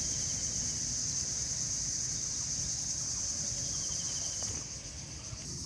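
Steady high-pitched drone of insects with a low rumble underneath, and a few faint short chirps.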